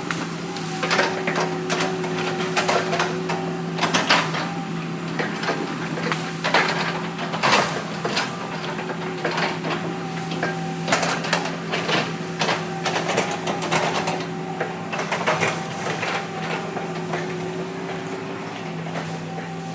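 Heavy earthmoving machine's diesel engine running steadily, with many irregular metallic clanks and knocks over it.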